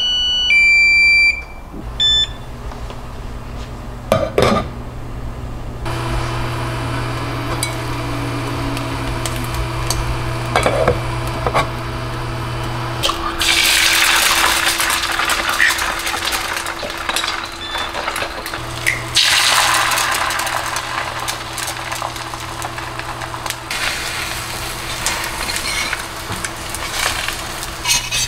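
Short electronic cooktop beeps, then a steady low hum from the hob. About halfway in, eggs hit the hot square stainless-steel frying pan and sizzle and crackle, with a second surge of sizzling a few seconds later as more eggs go in.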